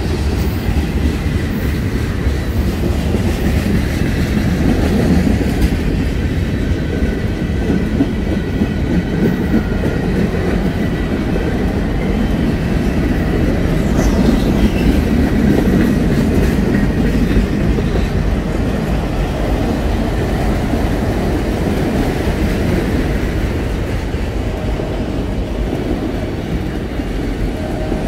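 Freight cars of a long train rolling past at speed: a steady, loud rumble with the clatter of wheels over the rail joints.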